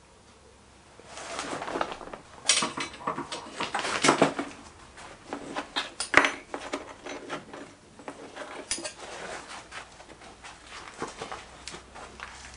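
Metal skimming tool scraping and clinking against the crucible of a small electric melting furnace as dross is skimmed off the molten metal: a run of irregular metallic clicks and scrapes starting about a second in, busiest in the middle and thinning toward the end.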